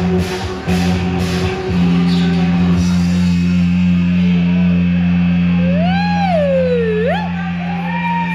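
Live rock band with keyboards, guitar and drums: drum hits about twice a second stop a couple of seconds in, leaving a held low chord. Late on, a single high note slides down and back up over it.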